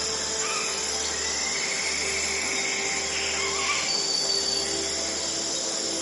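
Dawn nature ambience: birds chirping and insects calling over a soft, sustained synthesized tone, the relaxation 'frequency' melody.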